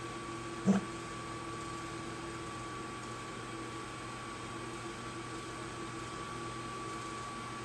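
Portable sawmill running with a steady mechanical hum holding two constant tones. A single short, loud sound cuts in under a second in.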